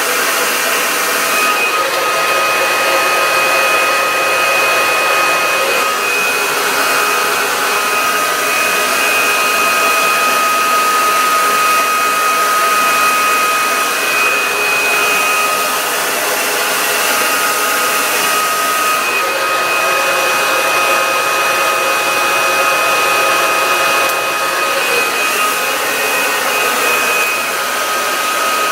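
T3 blow dryer running continuously: a steady rush of air with a high, constant motor whine.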